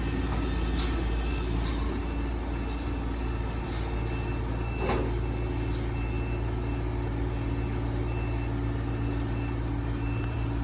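Kubota rice combine harvester's engine running at a steady pace. A faint, high-pitched beep repeats at an even pace, with a few light knocks, one about halfway through.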